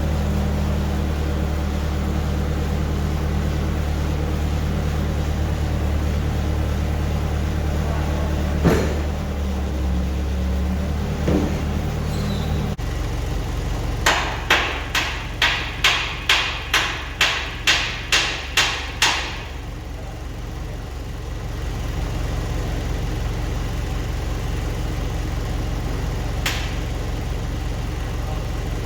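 A run of about a dozen hammer blows, roughly two a second for some five seconds, over a steadily running engine. The engine's sound changes abruptly shortly before the blows, and there are single knocks before and after them.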